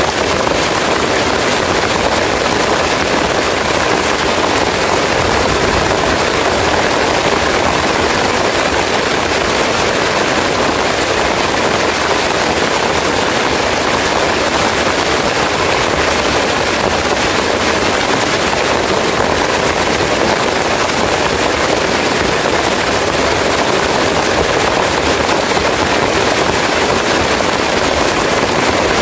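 Heavy rain falling steadily on leaves, an even hiss that does not let up.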